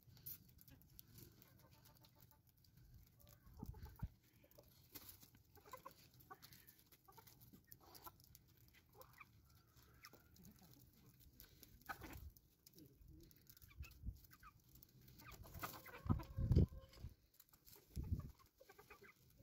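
Domestic chickens clucking quietly now and then, with a louder burst about three-quarters of the way through.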